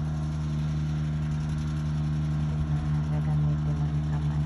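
Riding rice transplanter's engine running with a steady hum as the machine plants rice seedlings.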